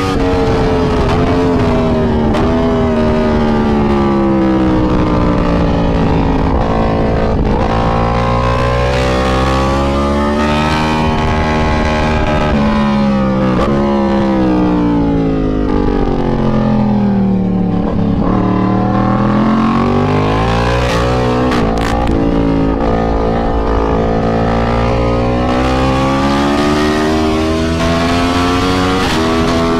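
Yamaha MT-10's 998 cc crossplane inline-four at full track pace: revs fall as the bike slows for corners and climb again on the throttle, several times over, with wind rush on the onboard mic.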